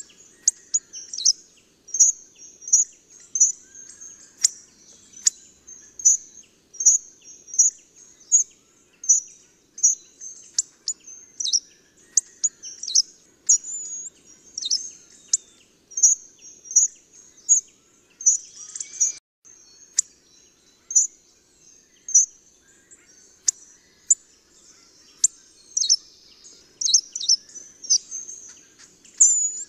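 Hawfinch calling: short, sharp, high-pitched calls repeated about once a second throughout, some of them quick downward sweeps.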